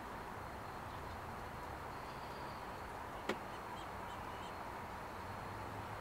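Steady outdoor background hiss with one short sharp tick about three seconds in, followed by a few very faint high peeps.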